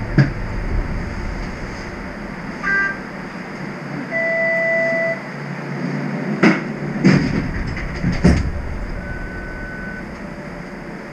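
Inside a stopped TTC streetcar: a steady hum and hiss from the car, with a short three-note electronic chime about three seconds in, a steady beep lasting about a second a little after that, three knocks between six and eight seconds, and a shorter, higher beep near the end.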